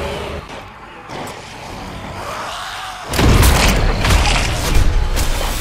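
A deep boom about three seconds in, followed by a heavy low rumble with several sharp impacts: action-film sound effects.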